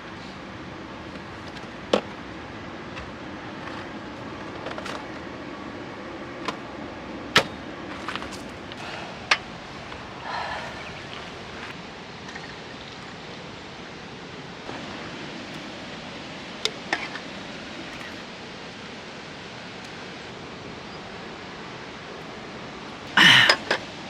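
Camping gear handled while a tarp is pitched: scattered sharp clicks and knocks over a steady background hiss, with a louder noise lasting about a second near the end.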